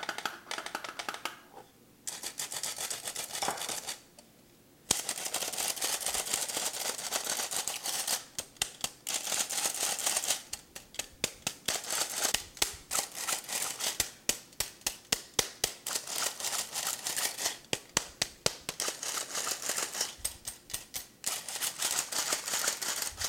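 Metal hand-operated flour sifter being worked over a bowl: a rasping, rapidly clicking rattle as the flour is pushed through the mesh. It comes in short spells with pauses at first, then goes on almost steadily at a few clicks a second.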